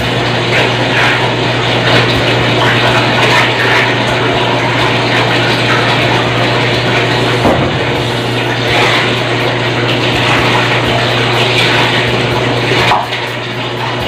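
Top-loading automatic washing machine filling its tub with water: a steady rush of water with a low hum, which cuts off near the end.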